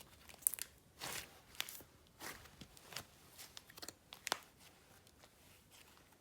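Slime being worked by hand: a series of crackly, crunchy squishes, spaced irregularly about half a second to a second apart, which die away after about four and a half seconds.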